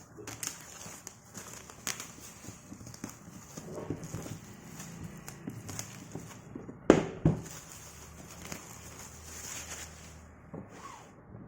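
Cardboard board-game box and its contents being handled during unboxing: scattered taps, rustles and clicks, with two sharper knocks about seven seconds in.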